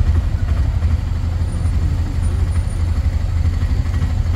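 Low, steady rumble of a small Suzuki hatchback's engine running close by as the car creeps along a busy street.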